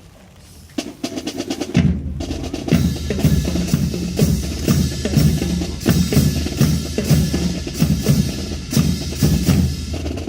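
Marching drum line starting up: a fast snare roll about a second in, then snare and bass drums come in together, playing a loud, steady rhythmic cadence.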